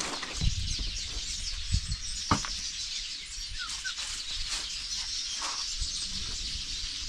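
Birds chirping over a steady high-pitched hiss, with a few short chirps and a couple of faint knocks.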